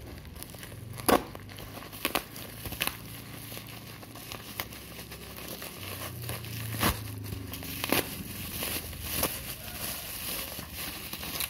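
Plastic parcel wrapping crinkling and tearing as it is cut open with side-cutting pliers, with about six sharp clicks, the loudest about a second in.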